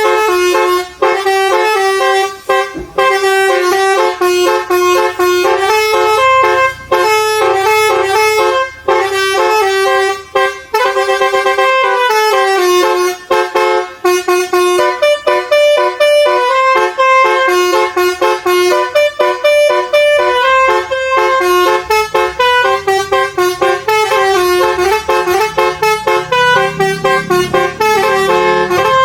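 ARF Tech air horn module playing a basuri-style horn melody: a run of held, horn-like notes stepping up and down in pitch, with short breaks between phrases.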